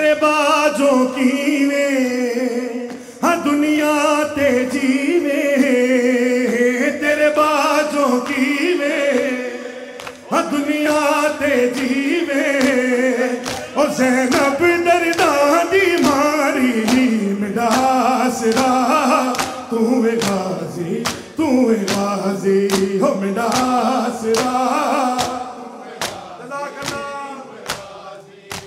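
Men singing a noha (Shia lament) in chorus: a lead singer on a microphone with a group of male voices singing along, over regular sharp slaps of hands striking bare chests (matam).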